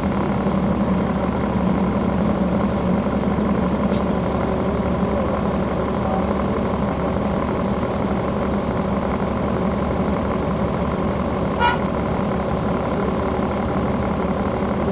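Caterpillar C13 diesel engine of a NABI 40-foot transit bus running steadily, heard from the back of the bus. A sharp click about four seconds in and a short higher sound about two-thirds of the way through.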